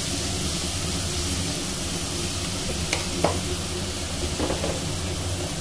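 Chopped onions sizzling in hot oil in a kadai, stirred with a wooden spatula, with a couple of short knocks of the spatula about three seconds in. A kitchen chimney hood runs with a steady hum underneath.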